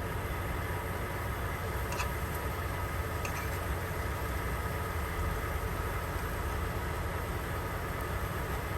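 Truck engine idling with a steady low rumble, with two faint light clicks about two and three seconds in.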